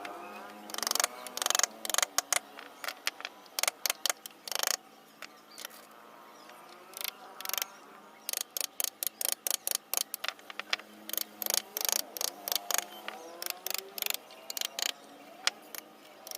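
Wooden mallet striking a carving chisel into shisham wood in quick, irregular clusters of sharp taps, with a short pause partway through.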